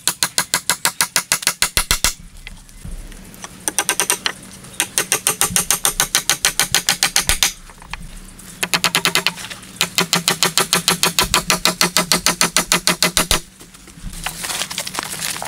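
Hatchet blows on wooden poles, fixing the rungs of a pole ladder, in several runs of rapid sharp strikes, about nine a second, each run lasting one to three seconds. Near the end the strikes give way to a rustling of steps through leaf litter.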